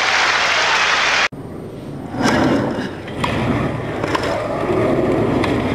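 Crowd applauding, cut off abruptly about a second in. Then a tennis rally: the ball is struck back and forth with a sharp hit about once a second, over a low crowd murmur.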